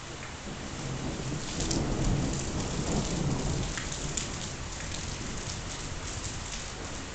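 Light rain pattering steadily, with a roll of thunder that rises about a second in, rumbles for a few seconds and fades.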